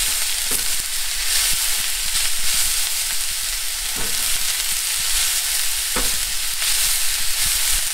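Shredded cabbage and onion sizzling in oil in a cast iron skillet as they brown, stirred and turned with a spatula. The spatula scrapes and knocks against the pan a few times.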